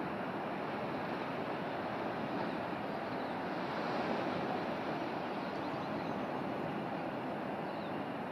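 Steady rushing noise of wind and surf on an exposed coast, with a few faint high chirps about halfway through and near the end.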